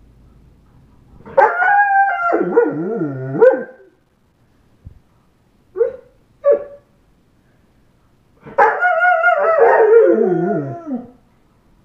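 Young German Shepherd, about eight and a half months old, howling: two long wavering howls that drop in pitch at the end, with two short calls between them.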